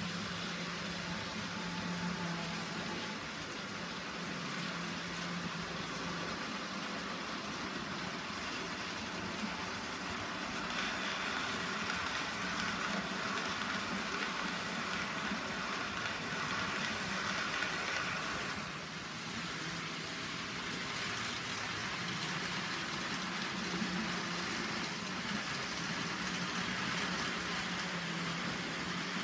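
Model trains running on layout track: a steady electric-motor hum and the running noise of small wheels on rails. The noise grows louder for about eight seconds in the middle, then drops back.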